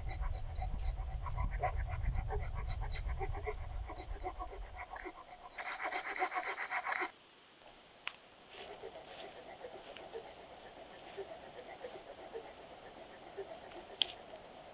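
Hand saw cutting a dead branch in quick back-and-forth rasping strokes, loudest for a stretch about six seconds in. The sound drops off sharply at about seven seconds, and quieter scratchy strokes follow.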